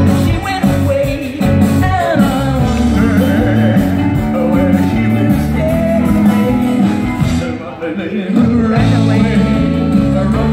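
Live band playing rock and roll with a lead singer and guitar, amplified over the stage speakers. The level dips briefly about eight seconds in.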